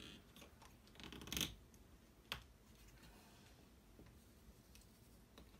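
Faint handling sounds of a plastic wall hook being worked off a painted wall by hand: a short scrape about a second in, then a single sharp click a little after two seconds, with near silence between.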